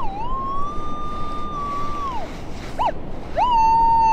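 Minelab Equinox 800 metal detector giving a target tone: a steady beep lasting about two seconds, a short blip, then a louder beep from about three and a half seconds in that dips and wavers in pitch. It signals a target with ID 14, a number that means either aluminum or gold.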